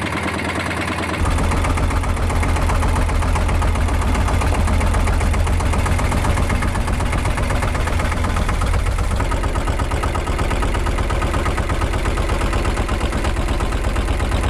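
Small boat's inboard engine running steadily with a low, even throb; it gets louder about a second in.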